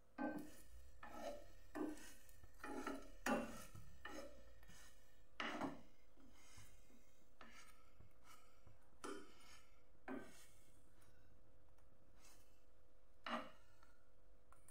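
A spoon rasping against the crisp, toasted crust of a sandwich in a non-stick frying pan: a quick run of short scraping strokes over the first few seconds, then a few more spaced further apart.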